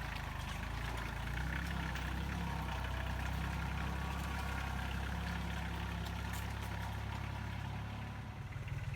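Tractor engine running steadily, its revs picking up about a second and a half in and easing off near the end.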